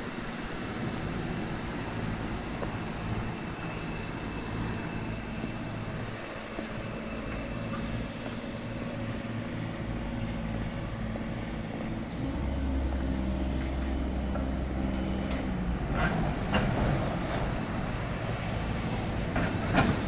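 Steady mechanical drone of city machinery and traffic with a thin high-pitched whine over it. A deeper rumble swells in about twelve seconds in and drops away a few seconds later, and a few sharp clatters come near the end.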